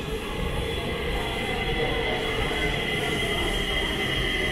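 Stockholm metro Red line train approaching the platform, its rumble and a steady high whine growing louder as it draws in.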